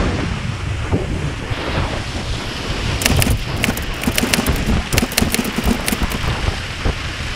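Water rushing and spraying around a wakeboard towed by a cable, with wind noise on an action camera's microphone. From about three seconds in, a run of sharp crackling splashes.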